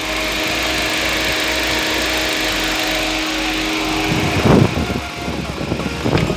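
Mazda 3's engine running at idle under the open bonnet: a steady hum over an even hiss. The steady tone fades after about four seconds, and brief louder noises come about four and a half seconds in and again near the end.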